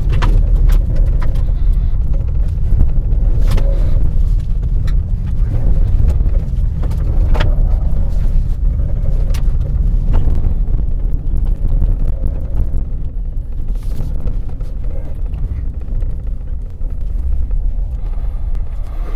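Ford F-150 Lightning electric pickup driving: a loud, steady low rumble of tyre and wind noise, with no engine note, broken by occasional sharp knocks.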